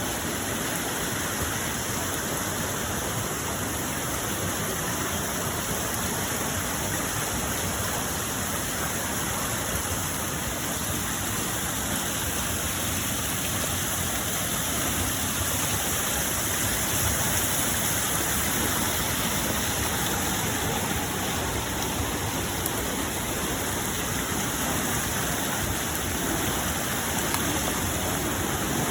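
Rushing floodwater, a steady even rush of flowing water with no breaks.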